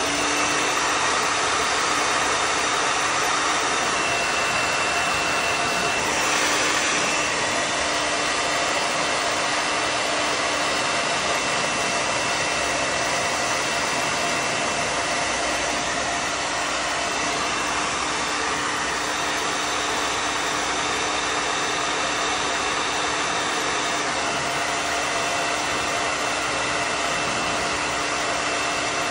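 Handheld hair dryer running steadily: a rushing blast of air with a steady whine from its motor.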